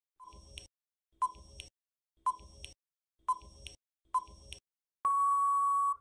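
Quiz countdown-timer sound effect: five tick-tock clicks about once a second, then a steady beep about a second long as the time for answering runs out.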